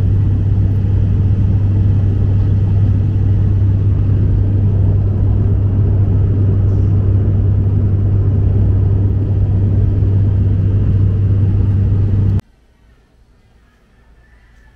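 Loud, steady drone of an airliner's engines heard inside the passenger cabin, with a strong low hum under it. It cuts off suddenly about twelve seconds in, leaving only faint background sound.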